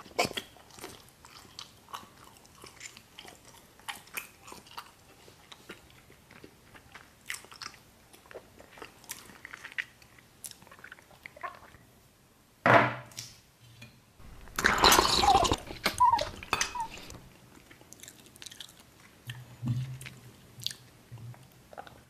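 Staged ASMR eating sounds: chewing and mouth clicks throughout, with a loud crunching bite about halfway through and a longer burst of crunching a couple of seconds later.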